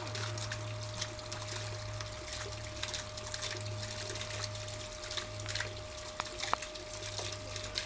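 Water trickling, with many small ticks and drips, over a steady low hum.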